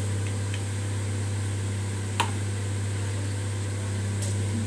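Steady low electrical or motor hum, like a fan running, with a faint high whine over it. A single sharp click about two seconds in.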